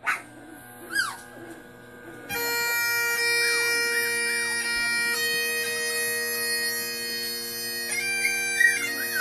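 Recording of bagpipes playing. After a short high squeal, the steady drones and the chanter's ornamented melody come in fully about two seconds in and hold at an even level.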